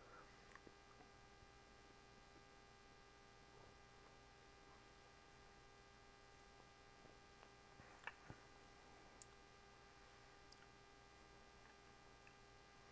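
Near silence: room tone with a faint steady hum and a few small clicks about two-thirds of the way through.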